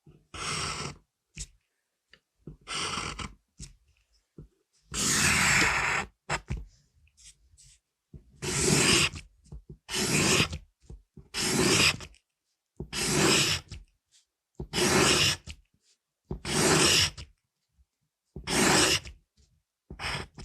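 Pencil scratching across paper in separate strokes, each lasting under a second. One longer stroke comes about five seconds in, followed by a regular run of strokes about one every two seconds.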